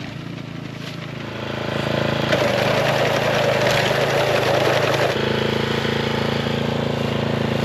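An engine running steadily, growing louder about two seconds in and changing pitch about five seconds in.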